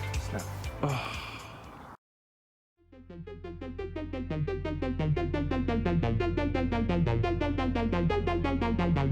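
Background music: a track with a steady beat fades out about two seconds in, followed by a brief silence. Then a synthesizer and electric-piano track fades in, playing a repeating falling figure over a steady low bass.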